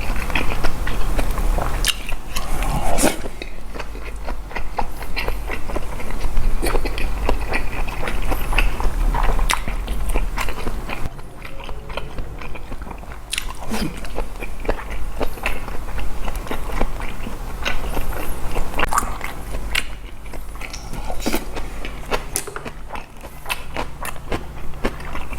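A person chewing and biting food, with irregular wet mouth smacks and small clicks throughout: eating boiled pork with fresh kimchi and rice.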